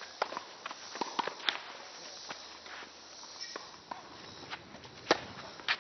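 Tennis rally: sharp pops of racquets striking the ball and the ball bouncing, mixed with shoes scuffing and stepping on the court. The loudest pops come about five seconds in.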